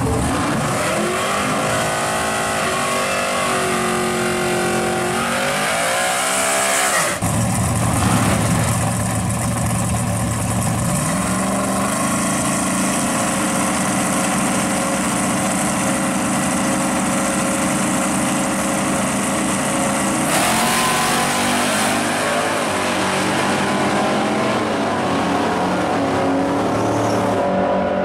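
Drag cars' engines at the strip. First a Ford Maverick drag car's engine revs up and down; after a cut, engines run steadily at the starting line. Near the end the pitch rises as the cars launch and accelerate away.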